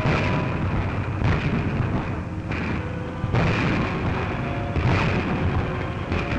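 A series of explosion booms, about half a dozen roughly a second apart, setting off avalanches, over music holding long notes.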